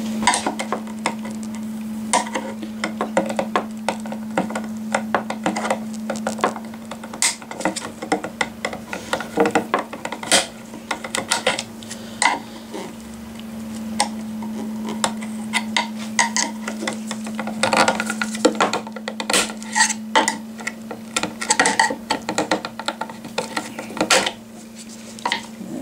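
Metal tool scraping, clicking and knocking against a removed car horn's plastic connector housing as the connector is prised off, in irregular clusters of sharp scrapes. A steady low hum runs underneath.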